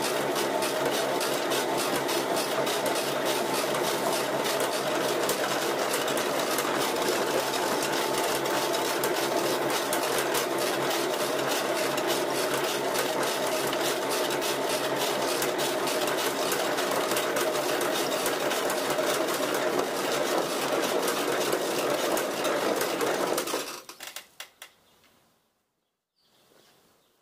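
Homemade sawdust pellet mill running, pressing sawdust into pellets: a steady, loud mechanical whirring with a fine, fast clatter. Near the end it falls away abruptly, leaving only a few faint clicks.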